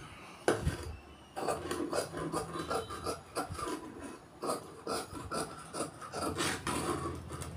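Tailor's scissors cutting through blouse fabric on a cutting table, a quick run of short rasping snips that starts about a second and a half in and carries on without a break.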